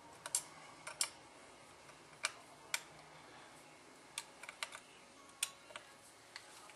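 Irregular light clicks and taps of small metal parts: a single action revolver and screwdrivers being handled during disassembly, about a dozen sharp clicks, some in quick pairs.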